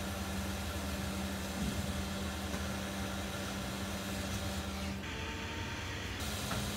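Hot air rework station blowing a steady stream of air through its nozzle, with a steady fan hum, while heating a BGA reballing stencil to reflow solder on a chip. About five seconds in the hum and hiss drop away for about a second, then return.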